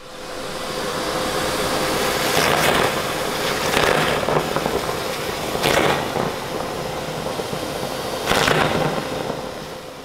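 Vacuum cleaner running with a steady hum as a clear plastic tube nozzle sucks raw eggs off a hard floor, with four short, loud slurps as the eggs are drawn up. The sound fades in at the start and fades away near the end.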